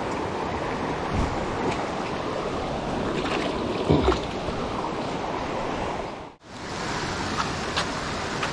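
Steady rushing of a shallow river running over rocks, with a brief splash about four seconds in as a hand goes into the water. The sound drops out for a moment about six seconds in.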